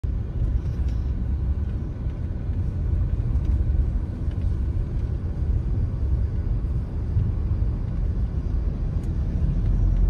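Steady low rumble of a car driving, road and engine noise heard from inside the cabin.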